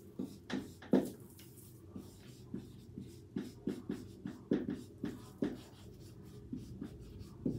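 Felt-tip marker writing on a whiteboard: a quick run of short separate strokes as a line of words is written.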